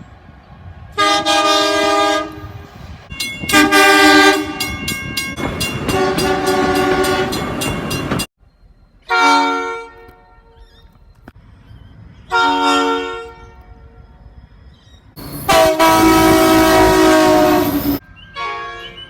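Train horns sounding about six separate blasts of one to three seconds each, every blast a chord of several notes at once, each cut off abruptly. Between some blasts the train rumbles and its wheels click over the rail joints.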